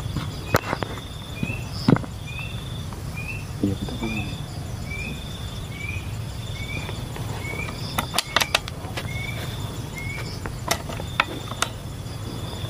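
A bird repeats a short rising call note about twice a second, over a steady high insect buzz that comes and goes. Sharp clicks and knocks from handling the air rifle and its scope cut in a few times, a quick cluster of them past the middle.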